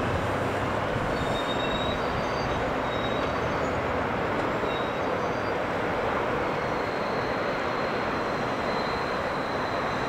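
Steady airport ground noise: a continuous rumble and hiss with faint, thin high squeaks or whines coming and going, and a longer one near the end.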